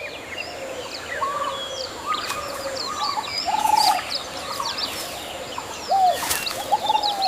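Many birds calling at once: a busy chorus of short chirps and arched whistled notes over a steady outdoor hiss.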